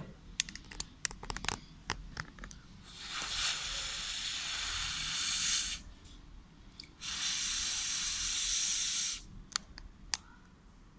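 A person blowing through the mouthpiece of an ALP-1 breathalyzer for a breath-alcohol test: two long, even blows of about three and two seconds. Sharp clicks of the device being handled come before and after.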